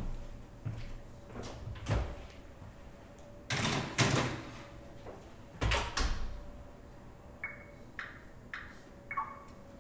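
A baking tray slid into a home oven with metal clatter, and the oven door shut with a thud about six seconds in, followed by a few short high beeps from the oven controls.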